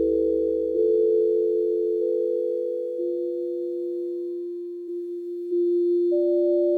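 Electronic music of pure, sine-like held tones, two or three sounding at once, with a new tone coming in every second or two and each slowly fading; a higher tone enters near the end.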